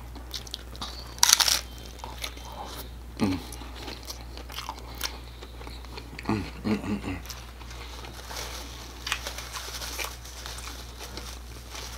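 A close-miked bite into a crisp hard-shell taco, with one loud crunch about a second in, followed by chewing with scattered smaller crackles and a few short hums from the eater.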